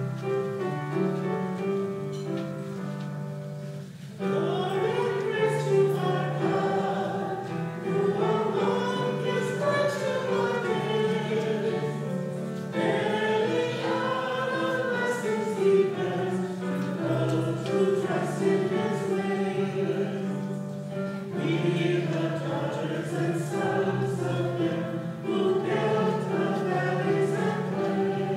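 Voices singing a hymn over keyboard accompaniment; the keyboard plays alone at first and the singing comes in about four seconds in.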